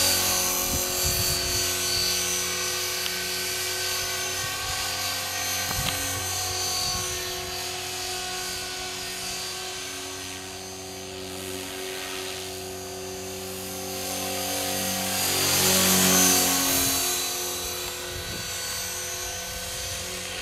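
Align T-Rex 500 DFC electric RC helicopter in flight: a steady high whine from its motor with the whir of the spinning rotor blades. It dips somewhat near the middle and grows loudest about three-quarters of the way through, then eases off.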